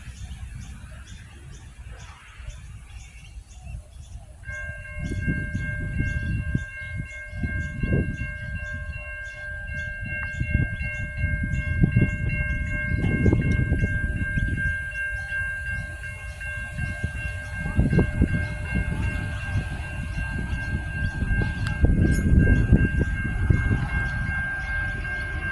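Adelaide 3000/3100 class diesel railcars approaching and running into the station, with a low rumble that swells and fades. From about four seconds in, a steady high-pitched tone sounds without a break.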